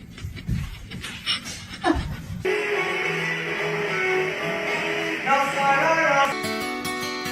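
A couple of seconds of knocks and short rising calls, then instrumental music with plucked guitar comes in about two and a half seconds in and moves to a new passage near the end.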